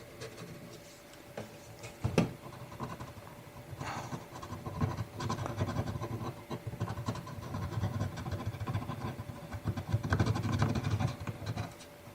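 Watercolor pencil strokes scratching and rubbing on paper in quick, irregular runs, with one sharp tap about two seconds in. The strokes grow busier and louder about halfway through, over the faint steady rush of a mountain stream.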